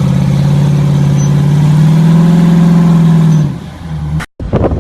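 Off-road vehicle's engine held at high revs under load while climbing a near-vertical rock wall, then dropping away about three and a half seconds in. A sudden cut to a moment of silence follows near the end.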